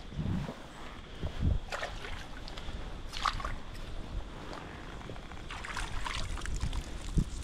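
A hooked estuary perch splashing at the creek surface as it is drawn into a landing net: several short splashes over a low rumble of wind on the microphone.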